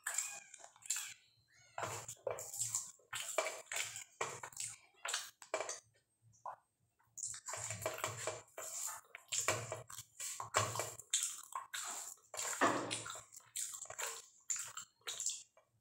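Eating rice by hand: fingers mashing and mixing rice with dal and curry on a metal plate, and chewing, in irregular short sounds with a brief pause about six seconds in.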